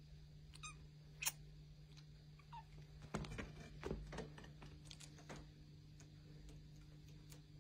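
Faint rustling and soft scratching as British Shorthair kittens clamber about on a corduroy cat bed, with a cluster of small clicks and scuffs from about three to five seconds in. A single sharp click about a second in is the loudest sound, over a quiet room with a steady low hum.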